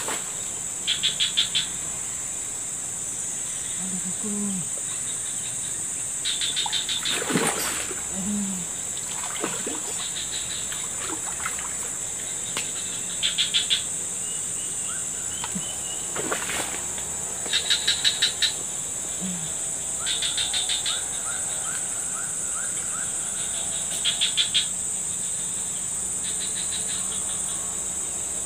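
Insects droning steadily and high in pitch, with short pulsed chirps coming back every few seconds. Two sudden sharp sounds stand out, about a quarter and about halfway through.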